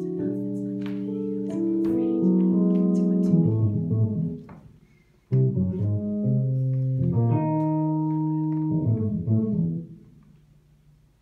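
Improvised instrumental music: a phrase of held, overlapping notes that fades out, then after a short break a second phrase that starts abruptly and also fades away near the end.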